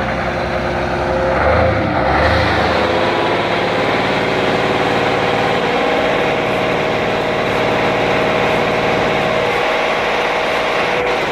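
Truck engine running steadily, with a couple of heavier low surges about two seconds in.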